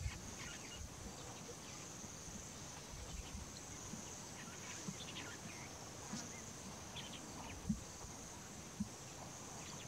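Steady high-pitched insect chorus in the bush, with scattered short bird chirps over it. Near the end come a couple of brief, faint low knocks.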